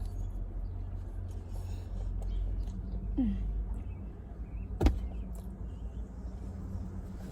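Steady low rumble inside a car, with a brief squeak about three seconds in and one sharp knock about five seconds in.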